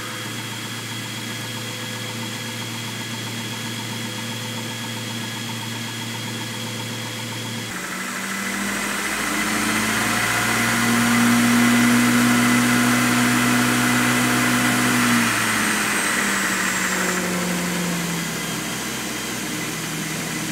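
KMG belt grinder with a two-horsepower motor on a variable frequency drive, running with a steady hum. About eight seconds in, the motor is turned up: its pitch rises and it runs louder at speed. Near the end it is turned down again and the pitch falls away.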